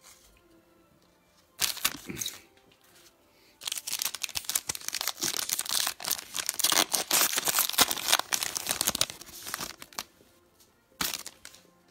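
Foil pack of football trading cards being torn open and crinkled by hand. A short rip comes about a second and a half in, then several seconds of dense crackling and tearing of the wrapper, and a brief crinkle near the end.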